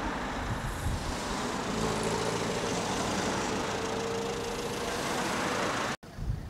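Car moving at speed, with loud engine and road noise heard from inside the cabin. The engine note rises slowly as the car accelerates. The sound cuts off abruptly about six seconds in.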